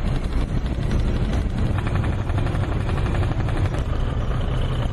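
Steady low rumble of a ship's engine running underway, with a fine rapid pulsing over it.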